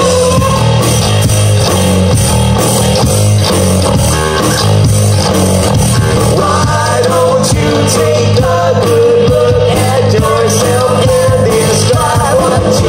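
Live rock band playing loud: distorted electric guitars, bass guitar and a drum kit, with a singer's voice over the top.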